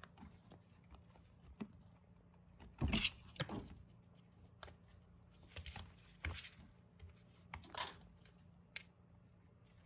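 Kittens scampering and pouncing on a cardboard-covered floor: scattered soft thumps and scratches of paws. The loudest is a landing thump about three seconds in.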